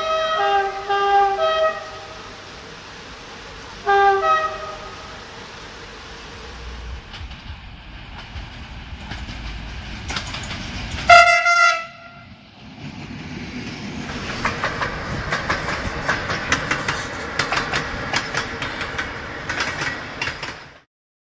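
Train horns: a string of short multi-tone blasts stepping between pitches, another brief blast about four seconds in, and a louder, longer blast around eleven seconds in. After that a train passes with wheels clattering over the rail joints, until the sound cuts off suddenly near the end.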